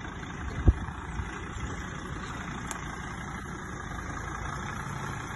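Mercedes-Benz Sprinter 616 tow truck's diesel engine running at low speed as the truck pulls away slowly, loaded with a caravan on its bed. A single low thump comes a little under a second in.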